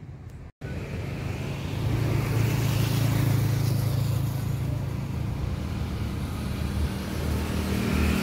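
A motor vehicle's engine droning steadily under a hiss. It comes in after a brief dropout and grows louder about two seconds in.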